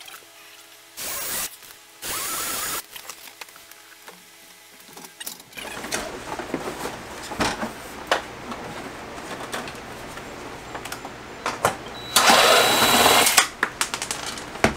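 Cordless drill running in two short bursts, about a second and two seconds in, drilling small pilot holes through a cardboard mounting template into the wall. Near the end a Craftsman cordless drill runs for about a second with a high whine, backing screws out of the air handler's metal mounting bracket, among clicks and rattles of the unit being handled.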